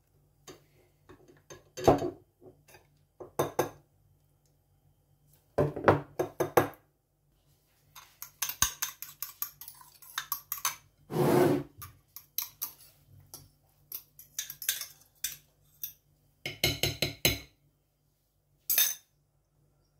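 Metal fork and spoon stirring a sauce in a small glass bowl, clinking against the glass in bursts of rapid taps with pauses between.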